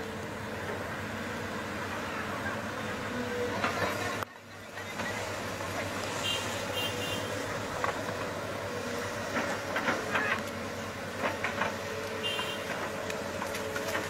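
Bulldozer engine running steadily, with short groups of high beeps about six and twelve seconds in.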